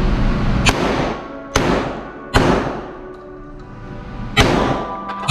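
Gunshots from a 9mm pistol or 12-gauge shotgun: five sharp reports at uneven intervals, with a two-second gap in the middle, each trailing off in a short echo, over background music.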